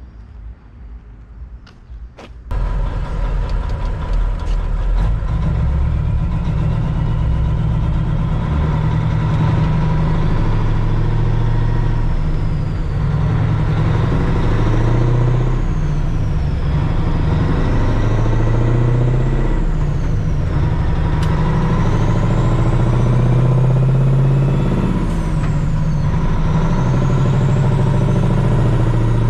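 Heavy truck engine running steadily. It comes in abruptly a couple of seconds in, with a deep rumble and a thin high whine that wavers slowly up and down.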